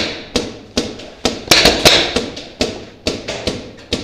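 Paintball markers firing in quick, irregular shots, several a second, each crack ringing on in the echo of the building's rooms.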